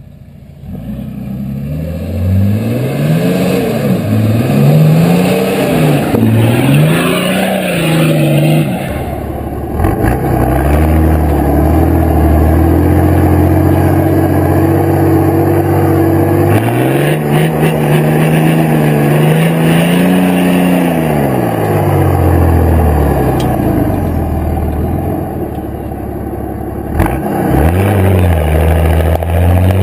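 Four-wheel-drive vehicle's engine revving up and dropping back several times in quick succession, then running steadily before climbing and falling again, as the vehicle drives off-road through soft sand.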